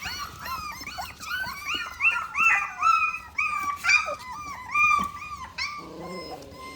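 Four-and-a-half-week-old Mini Aussie puppies whimpering and squealing in a rapid, steady run of short high-pitched cries, several at once.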